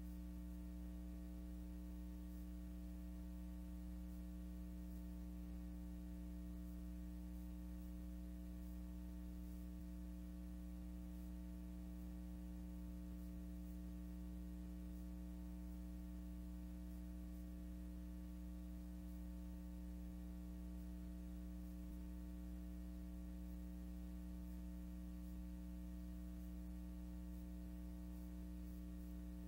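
Steady electrical hum with a stack of overtones over faint hiss, unchanging throughout: the noise floor of a silent film transfer, with no aircraft or other sound.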